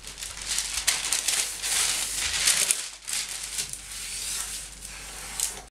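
Parchment baking paper rustling and crinkling as a sheet is unrolled and smoothed on a countertop: an irregular run of papery crackles, with a brief lull about three seconds in.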